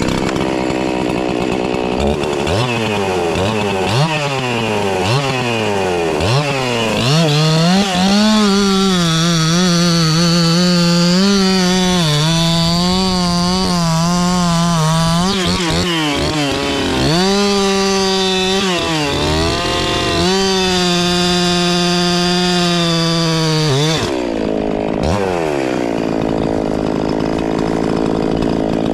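Two-stroke chainsaw blipped up and down several times, then held at full throttle cutting wood for most of the clip, its pitch dipping briefly now and then under load. It drops back to idle about three-quarters through and revs up again near the end.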